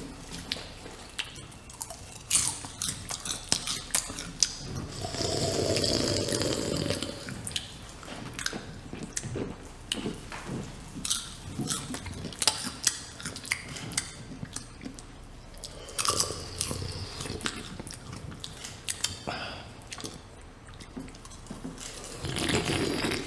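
Experimental live sound performance: dense, irregular clicks and crackles, with a louder noisy swell about five seconds in lasting two seconds, and another swell near the end.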